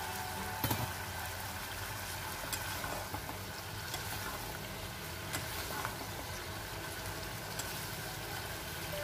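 Stir-fried green beans, cabbage and potato bubbling in a little sauce in a nonstick pan, with a spatula stirring through the vegetables and knocking lightly against the pan several times.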